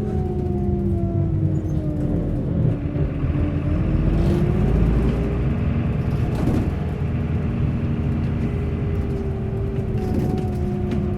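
Bus engine running with a deep rumble, its pitch falling over the first couple of seconds, then rising again and holding steady.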